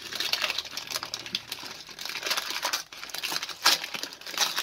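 Gift-wrapping paper crinkling and rustling in irregular crackles as a wrapped package is worked open by hand, with one sharper crackle a little over three and a half seconds in.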